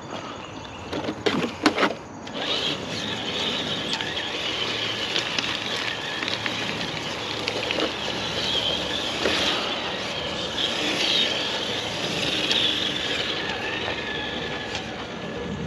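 A 1/10 scale RC crawler's electric motor and gear drivetrain whirring steadily as it crawls the course, swelling and easing with the throttle. A few sharp knocks come just before the whirring sets in.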